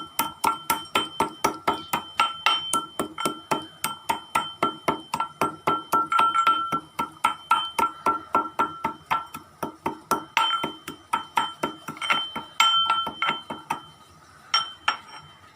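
Spices being pounded with a mortar and pestle: quick, even strikes about four a second, each with a short ringing tone, stopping near the end after two last strikes.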